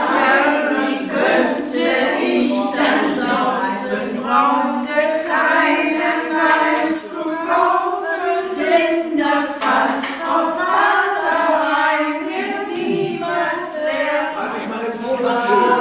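A small group of older people singing a German song together, mostly women's voices, with one song line running on without a break.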